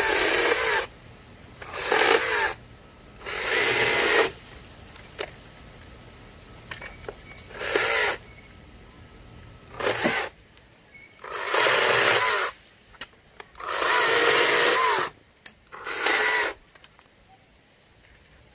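Greenworks GS110 battery top-handle chainsaw's electric motor running in short bursts, about eight times, each winding up and dying away within a second or so, with quiet gaps and small clicks between.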